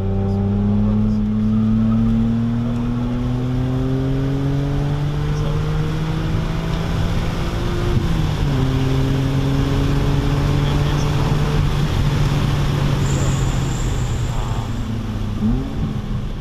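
2006 BMW Z4 M's S54 inline-six with a muffler delete, heard from inside the cabin, pulling hard under full throttle with its pitch climbing steadily. About halfway through the revs drop sharply at an upshift and climb again. Near the end the car is braking and there is a quick rev blip at a downshift.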